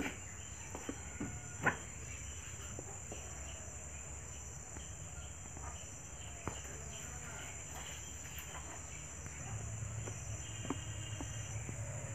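Steady high-pitched insect drone, like crickets trilling, with a few sharp clicks and knocks from handling the wardrobe's wooden doors.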